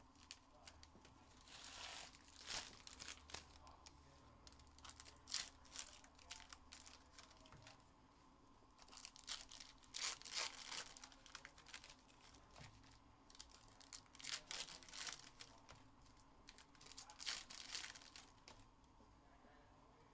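Wrappers of 2022 Panini Illusions football card packs being torn open and crinkled, in short bursts every few seconds.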